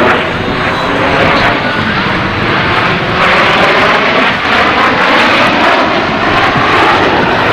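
Jet noise from Snowbirds CT-114 Tutor turbojet aircraft passing, a loud steady rush that swells about three seconds in.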